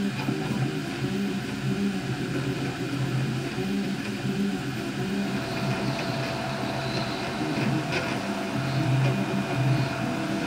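3D printer at work: its stepper motors whine in short tones that keep changing pitch as the print head moves, over the steady whir of the cooling fan.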